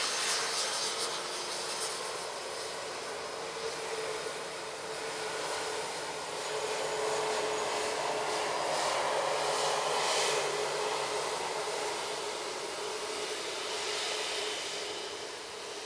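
Airbus A330-900neo's Rolls-Royce Trent 7000 turbofans running at taxi idle as the airliner rolls past, a steady whine over a low hum. It swells about halfway through as an engine passes closest, then eases off.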